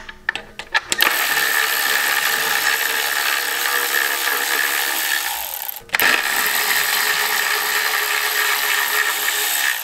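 Cordless electric ratchet backing out 8 mm heat-shield bolts. After a few clicks as it is fitted on, its motor spins steadily for about five seconds, stops briefly, then spins again for about four seconds.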